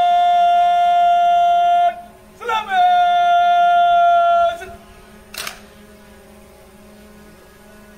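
A drill command shouted in two long, drawn-out notes on the same pitch, ordering the guard to present arms. About a second after the second note, one sharp crack as the rifles are brought up.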